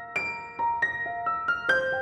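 Background music: a piano-like keyboard playing a melody of single struck notes, each ringing on as it fades.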